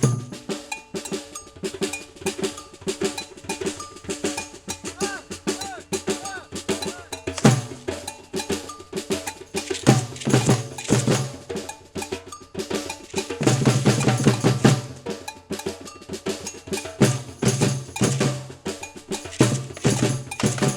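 Batucada-style Brazilian percussion group playing a fast, steady rhythm: deep bass drum strokes under dense sharp strikes and bell-like hits.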